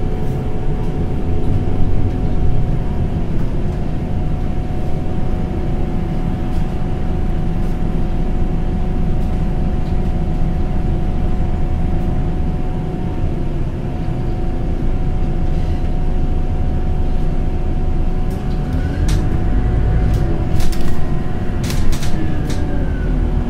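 Inside a Scania Citywide LFA articulated CNG bus under way: steady low engine and road rumble with a constant whine. In the last few seconds a whine rises and falls and a few sharp knocks or rattles sound.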